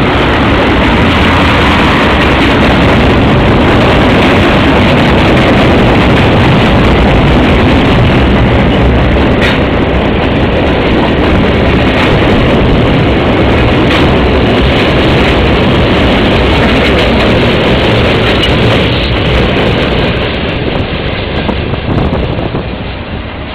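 CSX freight train of hopper and tank cars rolling past: a loud, steady rumble and rattle of steel wheels on rail, with two sharp clicks in the middle. It gets quieter near the end.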